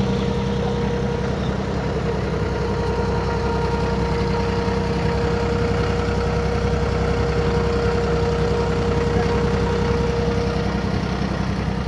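A wooden fishing boat's engine running steadily with the boat under way, a low even drone with a thin steady whine above it that drops away near the end.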